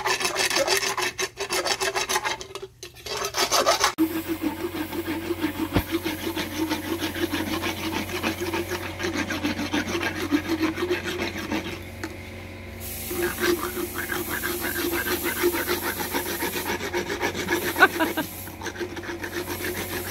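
Equine dental float rasping against a horse's teeth in fast back-and-forth filing strokes, as the teeth are floated to smooth them down.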